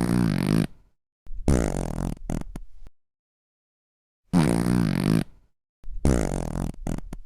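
Fart sound effect played twice over: a short fart, then a longer one that breaks into a few quick sputters at the end. After a pause, the same pair repeats.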